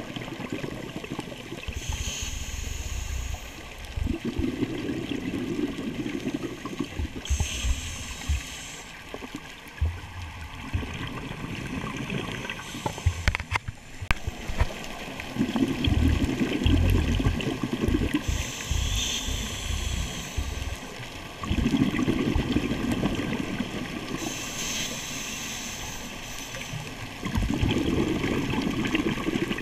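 Scuba diver breathing through a regulator underwater: a short hissing inhale, then a longer low bubbling rush of exhaled bubbles, repeating about every five to six seconds.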